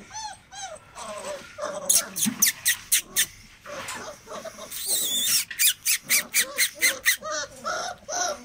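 A litter of Great Dane puppies whining and whimpering, with a quick run of short, high-pitched yelps about two seconds in and another from about five to seven seconds, about four a second.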